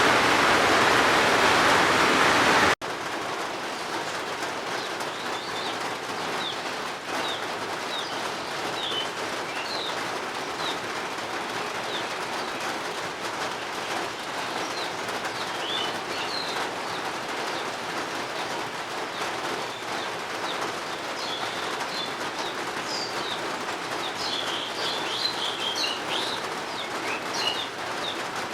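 Heavy rain hissing for the first few seconds, cutting off abruptly to a softer, steady rain with small birds chirping in short high calls, busiest near the end.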